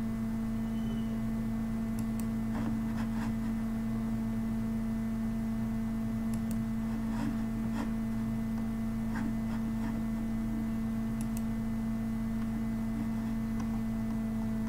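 Steady electrical hum picked up by the microphone chain, a strong low tone with fainter overtones, with a few faint clicks now and then.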